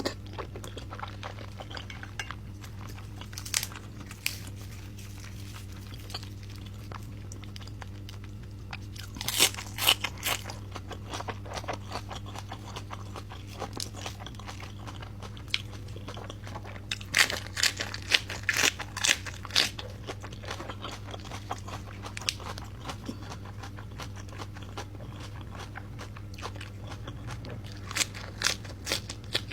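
Close-up mouth sounds of a person chewing and biting braised pork leg with its skin: clusters of wet clicks and smacks, loudest about ten seconds in, again around eighteen seconds and near the end, over a steady low hum.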